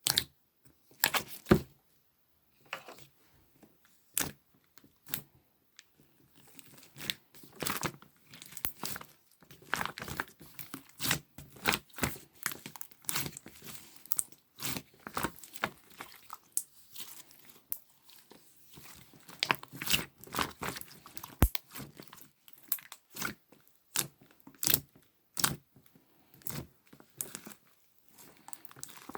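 Slime being squeezed, stretched and poked by hand, giving irregular sharp clicks and pops. A few clicks come in the first few seconds, then from about six seconds in they come thick and fast.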